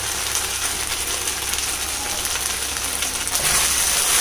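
Fried cauliflower in sauce sizzling steadily in a pan on the stove. A wooden spatula starts stirring it near the end, adding soft scraping knocks.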